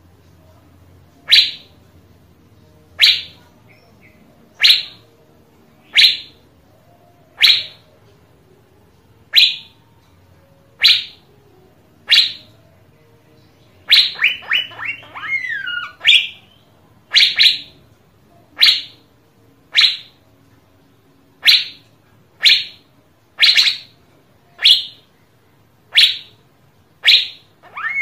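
Asian fairy-bluebird calling: a short, sharp whistled note repeated about every second and a half. About halfway through comes a quick run of notes ending in a falling slur, after which the single notes come a little faster.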